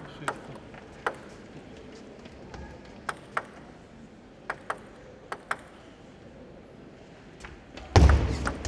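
Table tennis rally: the ball clicks sharply off the rackets and bounces on the table, mostly in quick pairs, several times over. A sudden loud noise comes near the end.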